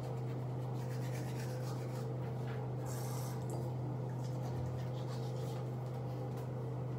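Manual toothbrush scrubbing teeth in quick back-and-forth strokes, over a steady low hum.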